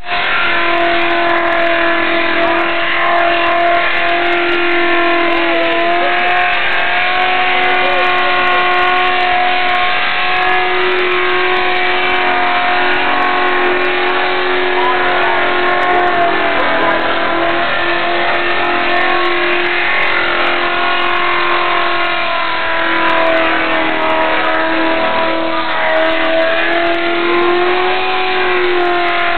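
Ford XE Falcon's engine held at high revs through a burnout, rear tyres spinning against the pad. The pitch stays steady, wavering slightly, with brief dips about halfway through and again later.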